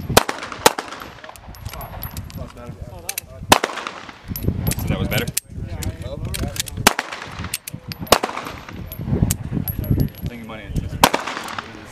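A line of 9 mm M9 service pistols firing: about a dozen sharp shots at uneven spacing, some close together, each trailing a short echo.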